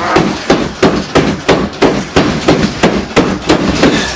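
A bed headboard banging against the wall in a steady rhythm, about three sharp knocks a second, from a couple having sex on the other side of the wall.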